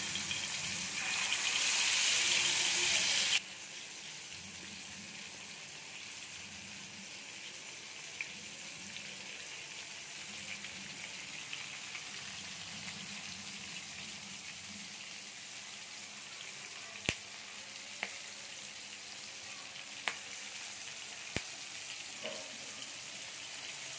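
Fish sizzling as it shallow-fries in hot oil on a tawa; the sizzle cuts off suddenly after about three and a half seconds. A faint steady hiss follows, with a few sharp clicks.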